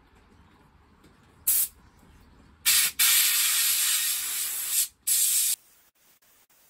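Water jet from a garden-hose spray gun flushing out a Land Rover Series 3 heater matrix: a short squirt, then about three seconds of steady hissing spray with two brief breaks, stopping suddenly.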